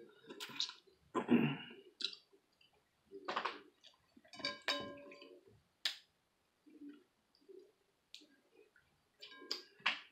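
Boiled crawfish being peeled and eaten by hand: irregular sharp clicks and cracks of the shells breaking, mixed with wet mouth sounds of sucking and chewing.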